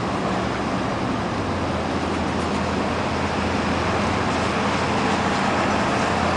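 Steady traffic noise with the low, even hum of an idling engine.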